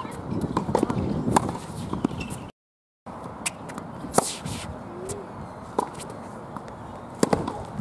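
Tennis ball being struck with a racket and bouncing on a hard court, a string of sharp hits and lighter taps. The sound drops out for about half a second near two and a half seconds in.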